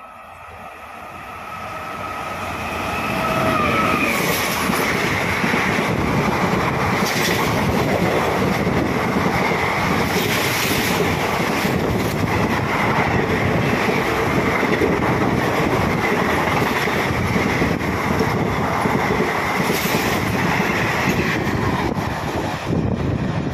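Amrapur Aravali Express passenger train approaching and then running through a station at speed. Its rumble grows louder over the first few seconds, then becomes a loud, steady rush of passing coaches with the clickety-clack of wheels over rail joints.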